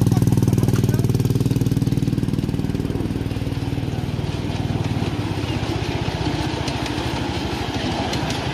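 Small combustion engine running with a fast, even beat, loudest at first and fading gradually until it is lost in background noise about halfway through.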